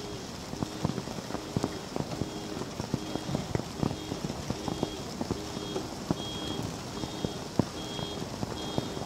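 Hailstones striking hard surfaces in a steady hiss of falling hail and rain, with many irregular sharp impacts. A high electronic beep repeats about every half second behind it.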